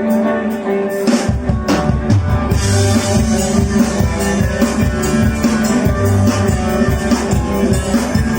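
Rock band playing live, an instrumental passage: a held guitar chord rings on its own, then drums and bass come in about a second in, with cymbals joining shortly after.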